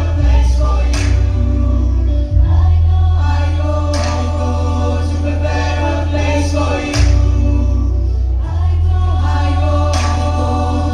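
Choir singing in harmony over a backing track with a steady, deep bass line.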